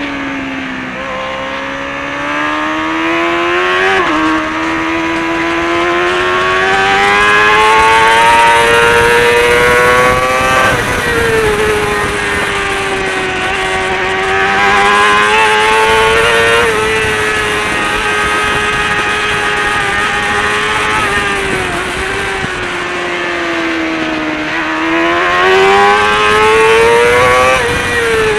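Kawasaki ZXR400's inline four-cylinder engine, through a Pipewerx exhaust, at racing revs as heard from on the bike. The pitch climbs under acceleration, drops sharply about four seconds in and again near eleven seconds, wavers through the middle, and climbs once more near the end.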